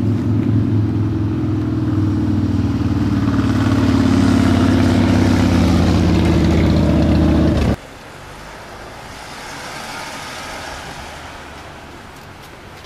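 A nearby motor vehicle engine running steadily, a loud low hum that swells slightly and then cuts off abruptly about eight seconds in. A much softer, steady rumble follows.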